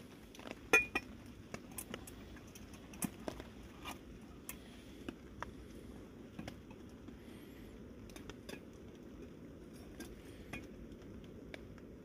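Stainless steel cooking pot and lid clinking and knocking as the pot of oil is handled and set down on a small gas camping stove: scattered sharp clicks, the loudest about a second in, then lighter knocks.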